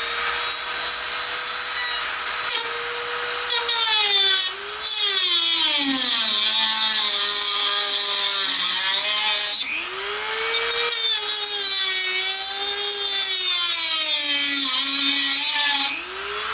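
Dremel rotary tool with a cutting wheel slicing around the metal casing of a tubular filter capacitor. Its high whine drops in pitch as the wheel bites and picks back up when the load eases, lifting off briefly about four and a half seconds in and again near ten seconds before cutting on.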